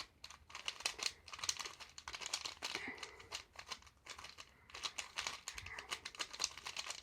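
Plastic Rubik's Cube pieces clicking and rattling in the hands as the disassembled cube is put back together. The clicks come thick and irregular, with a short lull about four seconds in.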